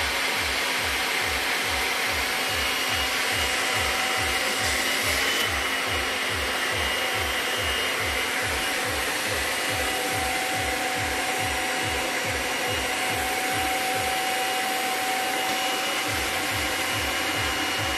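Vacuum cleaner running steadily: an even rushing noise with a thin whine on top and a low pulse about three times a second.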